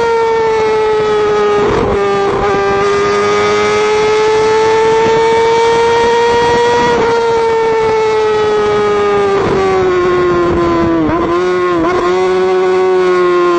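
A motorcycle engine running at high revs at speed through a road tunnel, a loud high-pitched whine whose pitch slowly sinks, climbs and sinks again. Twice near the end the engine note dips sharply and recovers, as the throttle is eased off briefly or a gear is shifted.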